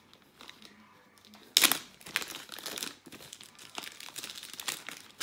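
Clear plastic zip-top bag crinkling and rustling as it is handled and opened. After a moment of quiet comes a loud sharp crackle about a second and a half in, then irregular crinkling.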